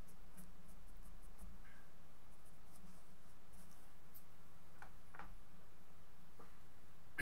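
Pencil shading on drawing paper: a run of faint, light scratching strokes that stops about four seconds in. A steady low hum runs underneath.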